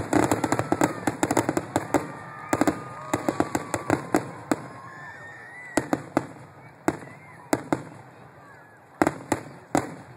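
Grand finale of an aerial fireworks display: a rapid barrage of bangs for the first few seconds, thinning out to widely spaced single reports, with a last pair of loud bangs near the end.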